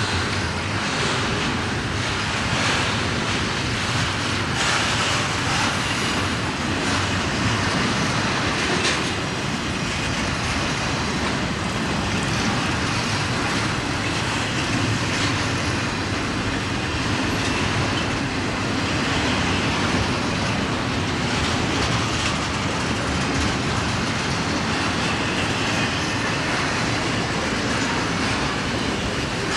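Train cars rolling past, a steady rumble with wheels clicking over rail joints.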